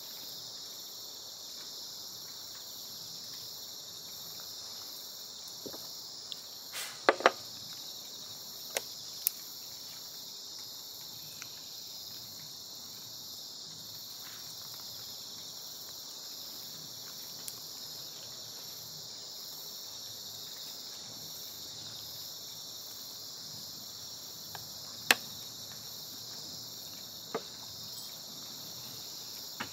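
Steady, high-pitched insect chorus, with a few sharp clicks on top: a cluster about seven seconds in and another near the end.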